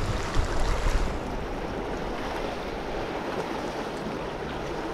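Sea water washing and lapping over shoreline rocks, a steady wash. A low rumble rides over it in the first second.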